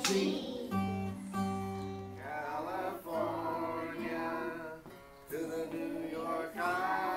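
Acoustic guitar being strummed, with singing joining in about two seconds in.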